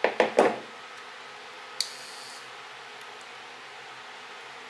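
Three sharp metallic clicks in quick succession, then about two seconds in a single click followed by a brief high whirr, as the Yashica CC lens's leaf shutter unit is worked by hand with pliers while being charged and released.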